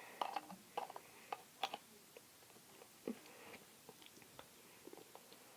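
Scattered short clicks and sticky taps of plastic slime-making containers and a glue bottle being handled by hand. Most fall in the first two seconds, with one more about three seconds in.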